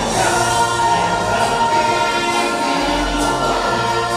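Show music from a stage musical: a recorded backing track with an ensemble of voices singing long held notes over a steady bass.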